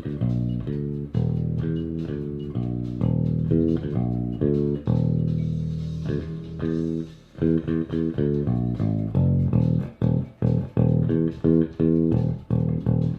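Electric bass guitar with a brass Hipshot A-style bridge and very dead strings, played through an Ampeg Micro VR head and AV 212 cabinet with the tone controls flat, in a warm tone. A line of longer held notes gives way about seven seconds in to shorter, choppier notes, two or three a second.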